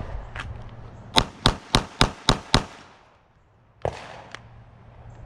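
Six rapid pistol shots from a 9mm Glock 45, a Bill Drill string fired evenly in about a second and a half. About a second later come two fainter knocks.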